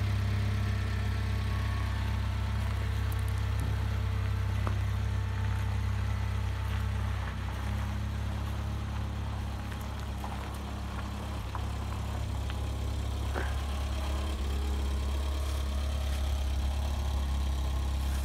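1992 Talbot Express camper van's 2-litre petrol engine idling steadily, dipping a little in level for a few seconds in the middle.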